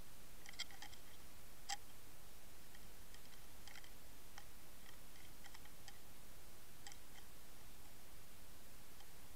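Faint, irregular clicks and ticks over a steady hiss, heard through a camera held underwater: a small cluster near the start, the sharpest click just under two seconds in, then scattered single clicks.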